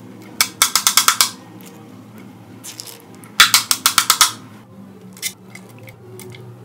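Metal spoon clicking rapidly against a stainless steel tray: two quick runs of about eight sharp clicks each, some three seconds apart, then one more click.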